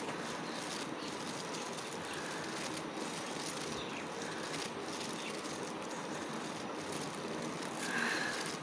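Steady background hiss with no distinct events, with a brief faint higher-pitched sound near the end.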